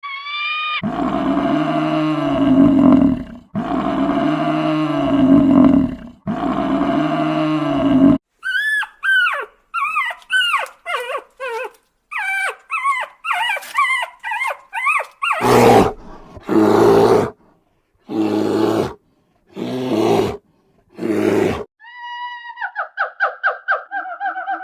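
A succession of different wild animal calls: three long, deep roars, then a run of short cries that rise and fall in pitch, then several loud short calls, and near the end a fast pulsing call.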